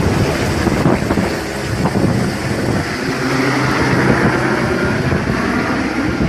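Helicopter taking off: the main rotor's fast, steady chop under loud engine noise, with a steady low hum and a higher whine joining about halfway through.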